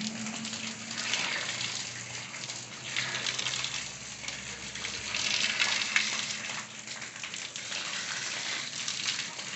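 Water spraying and splashing out of an open wall water pipe while a pipe fitting is screwed onto it by hand. The supply from the roof water tank is still on, so it hisses in uneven surges as the flow is partly blocked and released.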